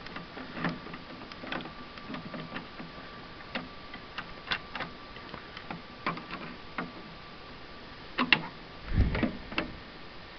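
Flathead screwdriver and hands working a cable plug loose inside an iMac G3: scattered small clicks and taps of metal and plastic, with a louder knock about nine seconds in.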